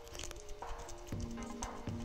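Background music with steady held notes, and under it the dull thuds of a wooden masher pounding boiled green plantain on a wooden board, twice in the second half.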